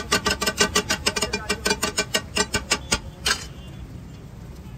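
Two metal spatulas chopping and scraping egg tikki mixture on a flat metal griddle (tawa): a fast, ringing clatter of about eight strikes a second. It stops about three seconds in with one last strike.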